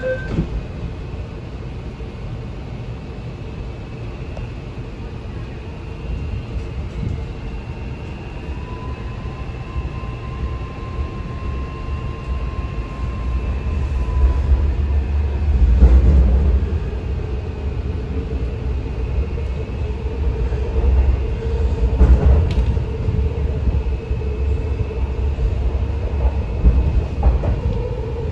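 MTR Kwun Tong Line C-train heard from inside a passenger car as it pulls out of a station: the door-closing beeps stop just at the start, then the train moves off with a faint rising motor whine about 8 to 10 seconds in and a steady running rumble that grows louder in two swells.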